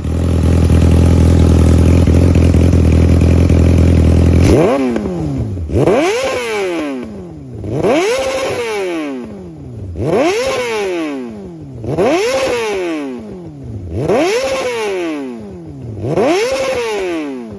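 Yamaha YZF sport bike's inline-four engine through an SC Project CR-T exhaust, idling steadily for about four and a half seconds, then revved repeatedly: seven blips about every two seconds, each rising quickly and dropping back to idle.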